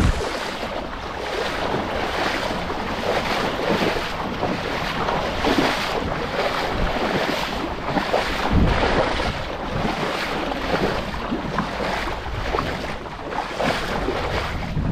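Water rushing and splashing, with wind buffeting the microphone and one low rumble of wind about halfway through.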